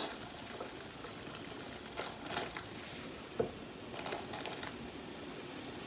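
Faint steady hiss of a pot of water at the boil, with a few soft scrapes and taps as chopped okra is pushed off a wooden cutting board into the pot.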